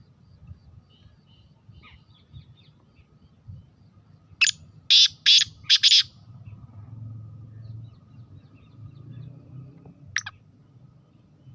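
Black francolin calling: a quick series of about five loud, harsh notes a little over four seconds in, then a single note near the end. Faint chirps of other small birds throughout.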